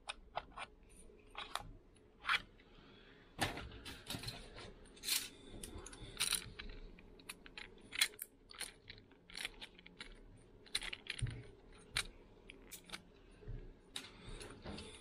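Water-pump pliers breaking a plastic knock-out tab off a heating programmer's back plate, with the plastic parts then handled: a run of irregular sharp clicks, snaps and short clatters.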